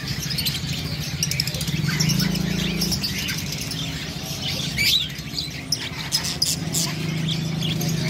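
A flock of white (albino) Java sparrows chirping: many short, high calls overlapping and scattered all through, over a steady low hum.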